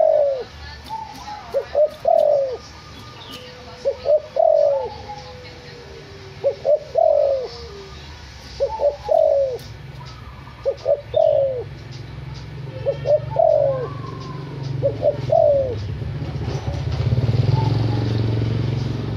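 Spotted dove (derkuku), a white backspot colour form, cooing its song phrase over and over, about once every two seconds. Each phrase has a couple of quick short notes and then a longer falling coo. A low rumble builds near the end.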